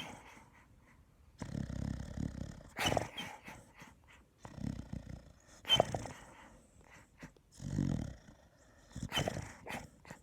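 A sleeping pet snoring: each breath is a low rumble followed by a sharper, louder puff with a brief high whistle, repeating about every three seconds, three times.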